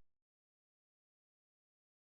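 Silence: the soundtrack goes dead right after a loud sound cuts off at the very start.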